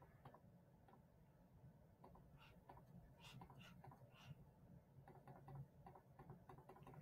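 Near silence with faint, scattered clicks of a computer mouse over a low room hum.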